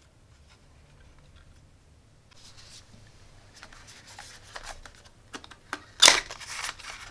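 Small cardboard box being handled and opened: cardboard rubbing and scraping in the hands, with a short, louder scrape about six seconds in as the end flap is pulled open.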